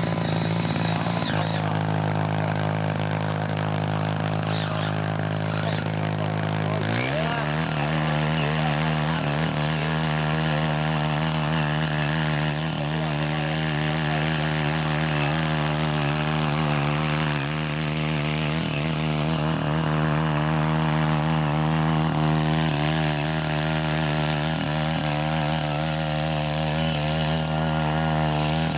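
Small gasoline engine of a CY80 mini garden tiller running steadily as its tines churn the soil. The engine note changes about seven seconds in, then wavers up and down as the tiller works.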